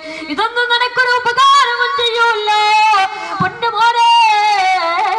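A boy's high voice singing a melodic chanted passage, with long held notes that waver and glide in pitch.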